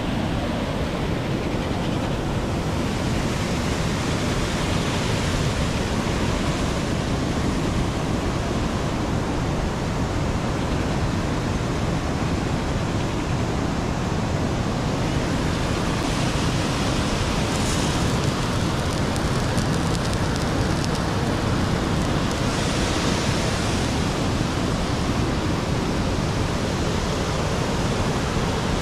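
Steady rush of a waterfall cascading over rocks.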